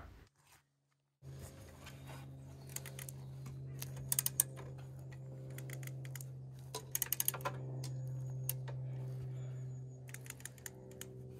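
Ratchet mechanism on a heavy motorcycle's centre stand clicking as its lever is pumped by foot to let the bike down off the stand, in short bursts of clicks a few seconds apart. A steady low hum runs underneath.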